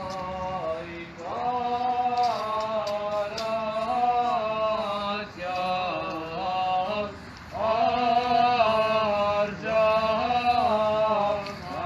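Male chanting of an Armenian church hymn, sung in long drawn-out phrases that glide slowly between held notes, with short breaths between phrases.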